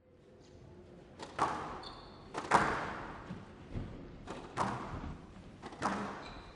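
A squash ball being struck by rackets and smacking off the court walls during a rally. There are about five sharp cracks a second or so apart, each ringing on briefly in the large hall.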